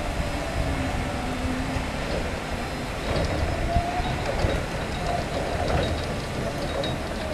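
2000 BT RRB-2-15 electric reach truck driving and turning on concrete: its electric drive whines, rising and falling in pitch as it speeds up and slows, over a low rumble.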